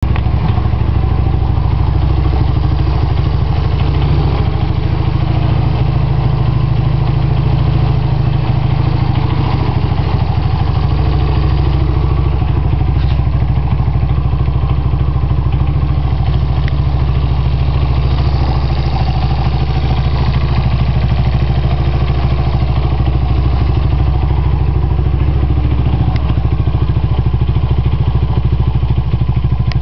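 1985 Yamaha 225DX three-wheeler's single-cylinder four-stroke engine running steadily, with a few faint clicks over it.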